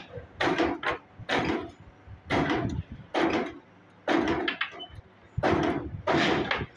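Thin metal wire rods sliding through the holes of a welded steel rack frame, metal on metal, in short irregular strokes about one a second with brief pauses between.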